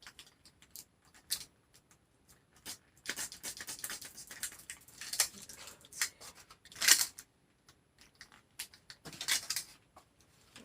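Hand-work noises of a rubber handlebar grip being twisted and worked loose on a bicycle handlebar with cleaner as lubricant: scattered small clicks and rubbing, with several short hissing scrapes, the loudest about seven seconds in.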